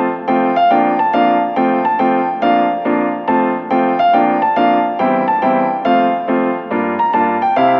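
Background music: a piano playing evenly repeated chords in a steady rhythm, a little over two strokes a second.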